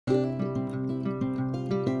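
Background music played on a plucked acoustic guitar, a quick run of picked notes starting abruptly at the very beginning.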